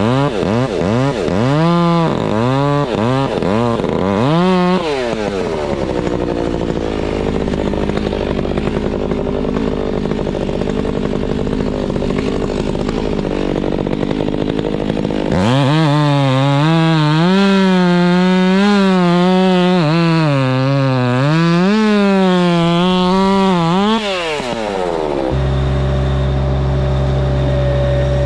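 Chainsaw running at high revs, its pitch rising and falling in quick waves as it is throttled and pulled down in the wood. About five seconds in it gives way to a rougher, lower running noise, then comes back loud for about ten seconds. Near the end it stops and a steady, lower engine hum takes over.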